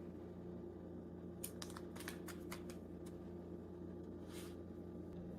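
Faint handling of small plastic items: a quick run of light clicks, then a soft rustle a couple of seconds later, over a low steady hum.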